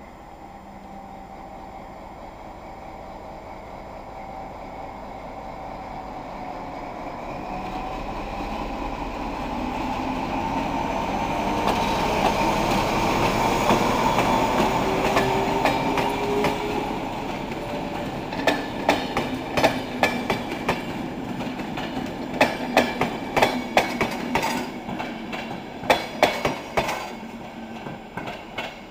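ZSSK class 750 diesel locomotive with its V12 diesel engine running as it approaches and passes, getting steadily louder up to the pass about halfway through. Its passenger coaches then roll by with a clickety-clack of wheels over rail joints, fading as the train draws away.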